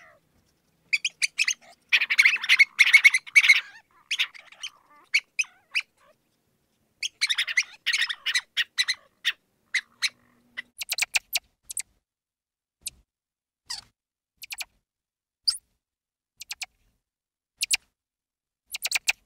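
Mouse squeaking: rapid runs of short, high-pitched squeaks about two seconds in and again about seven seconds in, then single squeaks every second or so.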